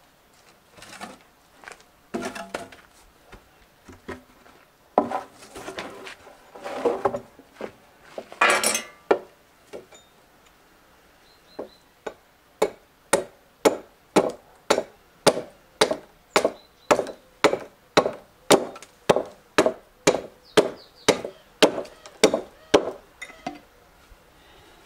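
Hatchet chopping the end of a wooden shovel handle to trim it to fit the shovel's socket: a few irregular knocks and scrapes at first, then from about halfway in a steady run of sharp wooden chops, about two a second.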